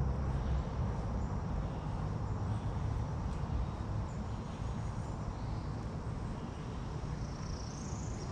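Steady low outdoor rumble with no distinct source, and a few faint high chirps.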